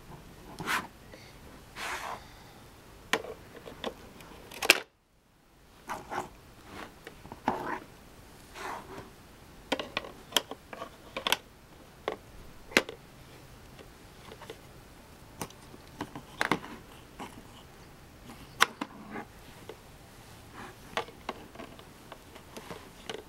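Hard plastic shape-sorter blocks clicking and knocking against the lid and falling into the box as a small child pushes them through the holes, in irregular taps about once a second. The sound cuts out for about a second, about five seconds in.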